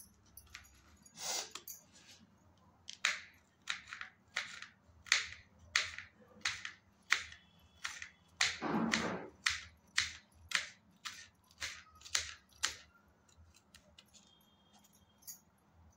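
Kitchen knife slicing green chillies on a plastic cutting board: a run of crisp cuts, about two a second, with one longer, louder stroke midway. The cutting stops about three seconds before the end.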